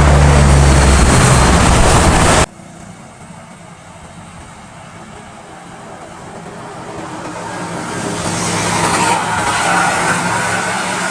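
Road vehicles passing close by. A loud vehicle with a steady low engine tone cuts off abruptly about two and a half seconds in. Then another vehicle is heard approaching and passing, loudest about nine seconds in.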